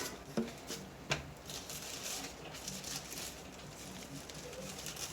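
Handling noise from lifting a dash cam screen out of its foam packaging: two sharp clicks in the first second or so, then soft rustling and light tapping.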